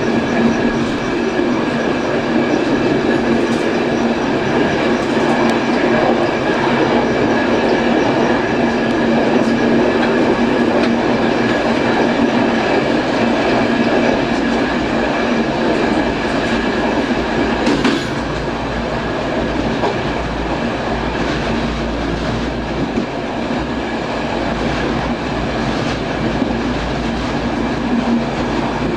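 E14000 electric multiple unit running along the line, heard from inside its rear cab: wheels clattering on the track under a steady humming tone. About eighteen seconds in there is one sharp click, and after it the train runs a little quieter with more low rumble.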